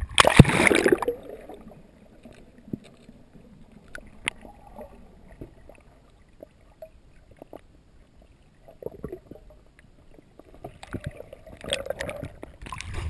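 A splash about half a second in as an action camera plunges underwater, then muffled underwater sound: scattered small clicks and faint gurgling in murky river water. Near the end there is rougher sloshing noise as the water is stirred again.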